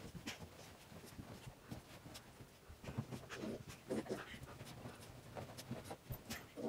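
Puppy panting, grunting and whimpering as it rolls and thrashes on a sheet-covered couch, with scuffing of the fabric under it. The loudest short cries come about three to four seconds in.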